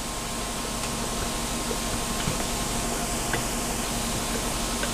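Steady rushing noise with a faint low hum underneath, as of fans or machinery running.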